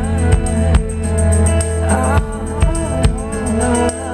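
Band music with guitar, bass and a steady drum beat, an instrumental passage with no lead vocal.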